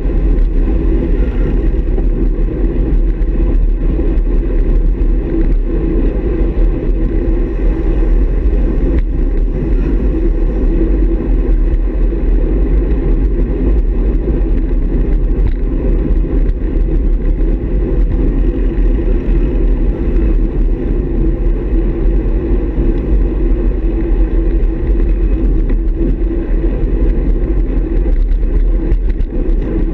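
Steady wind and road noise on the microphone of a handlebar-mounted camera on a road bike riding in a pack, heaviest as a deep rumble.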